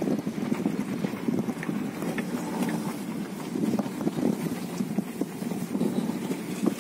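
Wind buffeting the microphone: an uneven, gusting rumble that swells and drops every second or so.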